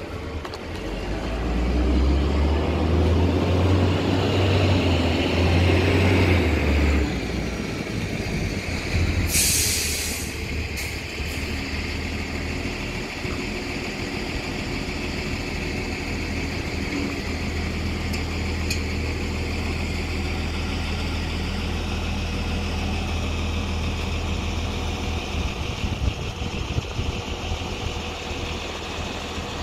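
Deutz auxiliary diesel engine of a Cifa concrete mixer semi-trailer running with a steady low hum, noticeably louder for the first several seconds. A short burst of hiss comes about a third of the way in.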